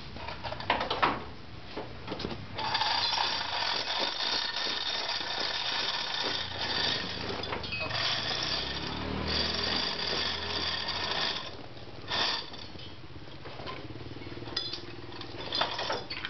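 Metal tool work on a car's front wheel: a rapid metallic rattle that lasts several seconds, with scattered clanks of metal before and after it.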